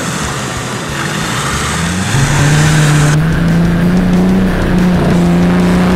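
Off-road 4x4 engine revving hard under load. About two seconds in it gets louder and climbs in pitch, then holds at high revs.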